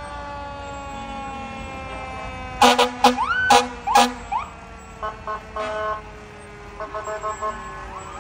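Parade fire engines sounding off: a siren winds slowly down in pitch, four loud air-horn blasts come about two and a half seconds in with rising siren whoops among them, and shorter horn toots follow in the second half.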